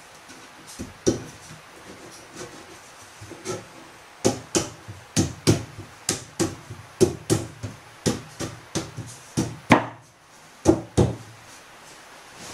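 Hard wooden knocks and clacks as a pine board and the bed frame's slats are shifted and set into place. There are a few knocks at first, then a quick irregular run of them, about two a second, for several seconds.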